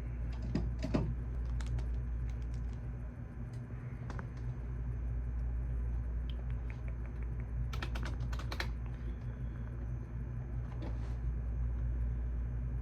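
Computer keyboard keystrokes, sparse and irregular, with a quick run of several key presses about eight seconds in. A steady low hum runs underneath.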